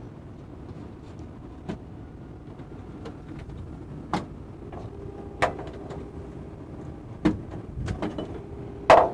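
Cable plugs being pulled from the connectors on the underside of a Daktronics DMP-4060 display player: a series of sharp clicks and knocks about a second or two apart. Steady background noise and a faint hum run underneath.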